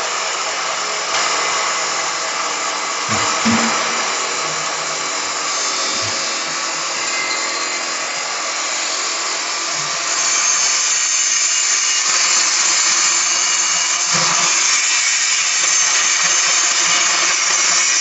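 Flat die pellet mill running as it presses wood pellets: a steady mechanical whine with a hiss over it, getting louder about ten seconds in. A few brief low knocks sound in the first few seconds.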